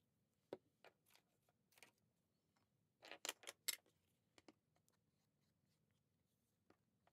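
Hands handling cardstock and craft tools on a wooden desk: scattered light taps and rustles, with a quick cluster of sharper clicks and knocks about three seconds in as supplies are set down and an ink pad is opened.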